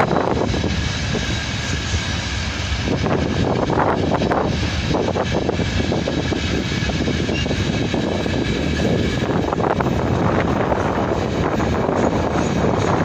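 Freight train rolling past: a steady rumble of wagon wheels on the rails, with strong wind buffeting the microphone.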